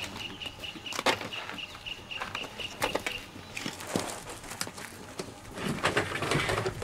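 Scattered knocks and scrapes of a wooden animal crate being handled on a truck bed. Over the first half a bird calls a rapid string of high notes, about four a second, which stops about three seconds in.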